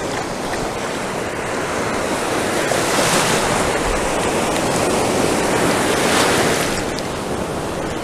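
Ocean surf breaking and washing around a wader, a steady rush of whitewater that swells louder twice, about three and six seconds in.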